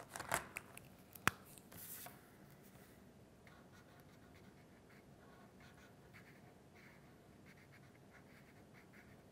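A sharp click about a second in as the cap is pulled off a felt-tip marker, then the marker scratching faintly on paper in short, repeated colouring strokes.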